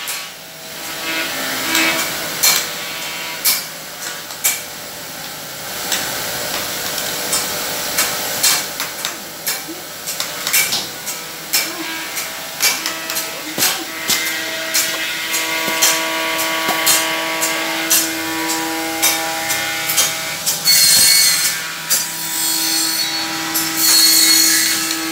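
Machinery in a uPVC window-frame workshop around a seamless welding machine: a steady hum with many scattered clicks and knocks, and two short bursts of hiss near the end.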